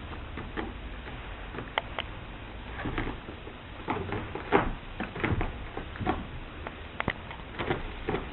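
Irregular light knocks and clicks, a dozen or so at uneven spacing, over a low steady rumble.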